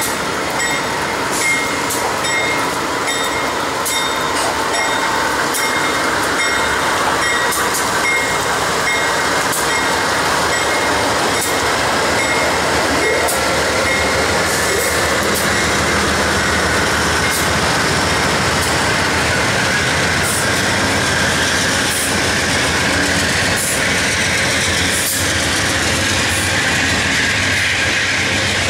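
A departing Amtrak passenger train: a BNSF GE diesel-electric locomotive running under power as it pulls away, then Superliner passenger cars rolling past with steady wheel-on-rail noise and occasional clicks, over a constant hiss of rain. A repeated high ringing sounds through the first several seconds and then fades.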